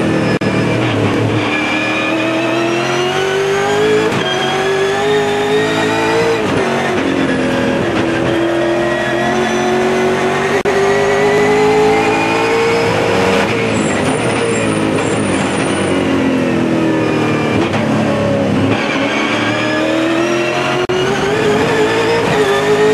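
V8 touring car's V8 engine at racing speed, heard from inside the cockpit. It rises through the revs in long climbs, and the pitch drops sharply several times at gear changes and braking.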